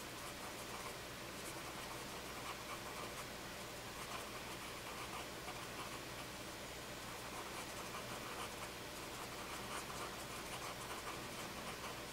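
A cotton swab rubbing over graphite-toned drawing paper to blend the graphite, making a faint scratchy rubbing in irregular strokes.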